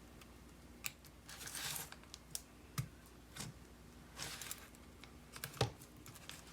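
Light clicks, taps and brief scraping as the small parts of an opened iPod Classic (hard drive, battery, metal case) are handled and fitted together. About five separate clicks with two short rubbing sounds between them; the sharpest click comes near the end.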